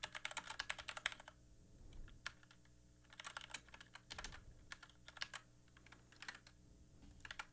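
Faint typing on a computer keyboard: quick runs of key clicks separated by short pauses.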